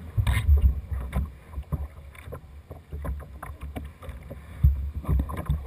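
Irregular low thumps and knocks from a Jackson Dynamic Duo tandem whitewater kayak rocking against the pool side, with water lapping at its plastic hull.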